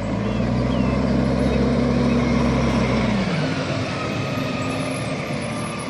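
Garbage truck engine running, its pitch dropping about three seconds in as it eases off and then running on lower.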